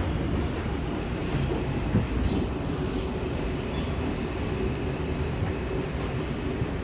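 R142 subway train rumbling steadily along the track, with a faint steady whine and a single knock about two seconds in.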